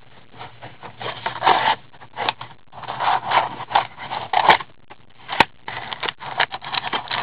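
Cardboard of a Panini Dominion hockey card box scraping and rustling as gloved hands slide off the lid and pull out the inner box, with a couple of sharp clicks around the middle.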